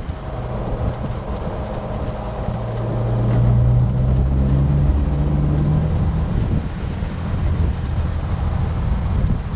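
A 4x4's engine pulls along a rough dirt track over the rumble of its tyres. The engine note grows louder and climbs in pitch around the middle, then settles back.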